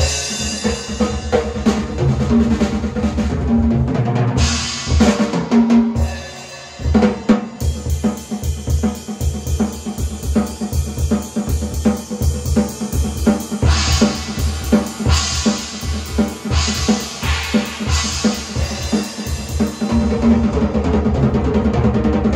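A large drum kit played hard with fast, dense bass drum and tom strokes and cymbal crashes. The playing breaks off briefly about six seconds in, then rapid drumming resumes, with a run of cymbal crashes past the middle.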